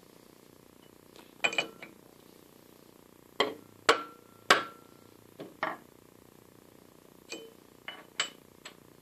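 Soft-faced hammer striking a bent shaft held in a lathe to knock its high spot straight: a string of sharp knocks. The two hardest, about four seconds in, each leave a short ring.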